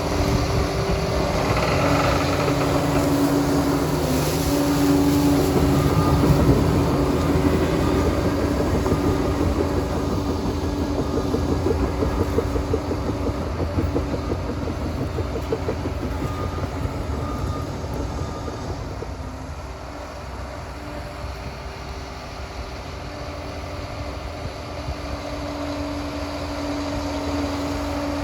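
Liebherr 746 crawler dozer working, its engine and drive running with a steady whine and a metallic track rattle. It eases off a little past the middle and picks up again near the end.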